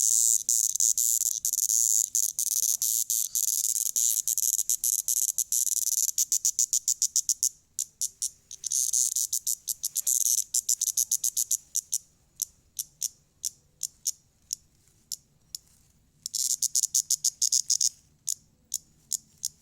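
Cicada calling: a loud, high-pitched buzz that breaks into sharp rapid clicks, with two shorter buzzes later on separated by slowing trains of clicks.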